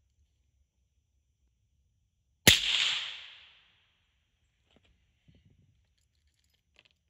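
A single rifle shot from a 6mm Mongoose firing a 65-grain V-Max handload: one sharp crack about two and a half seconds in, with a tail that dies away over about a second. A few faint clicks follow.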